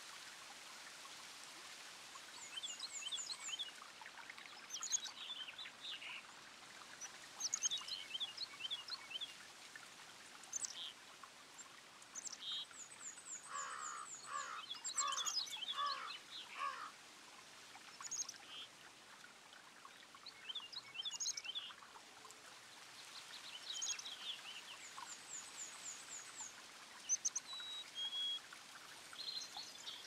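Small birds chirping and calling in short, scattered phrases, with a denser run of lower calls around the middle, over the faint steady trickle of a small bubbling fountain.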